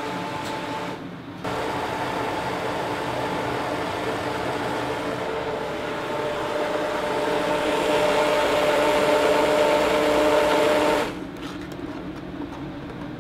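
Immersion (stick) blender motor running in a pot of softened hot peppers, puréeing them into sauce. It cuts out briefly about a second in, runs steadily, grows louder past the middle, and stops near the end.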